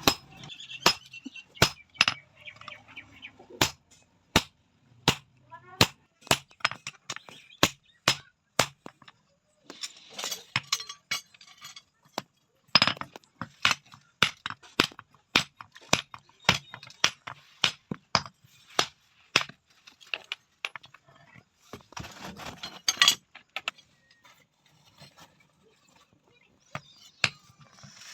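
Hand-forging with a hammer: repeated sharp hammer blows on metal, about one or two a second, with a pause of a few seconds near the end before the strikes start again.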